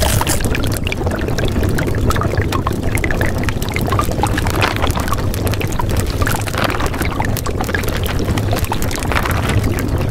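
A steady, even wash of noise with a low hum underneath and many small scattered crackles and clicks.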